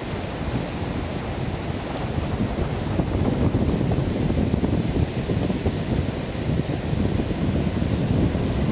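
Wind buffeting the microphone, with sea surf breaking in the background.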